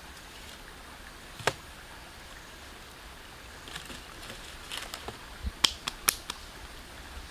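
Wooden sticks being handled: a few sharp snaps and knocks over a steady outdoor hiss. There is one loud crack about a second and a half in, and a cluster of quick clicks and snaps in the second half.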